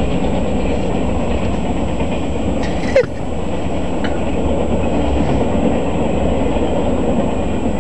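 Norfolk Southern freight train of Triple Crown RoadRailer trailers rolling past at speed: a steady, loud rumble of wheels on rail, with a brief sharp sound about three seconds in.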